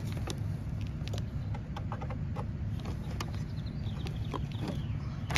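Light plastic clicks and taps at irregular moments from handling wire connectors on a heat pump inverter circuit board, such as moving the model plug, over a steady low background rumble.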